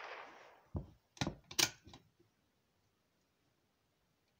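The echo of a .22 short rifle shot dies away, then about five sharp metallic clicks follow within about a second as the Cooey Ace single-shot bolt-action's bolt is worked to open the action and extract the spent case.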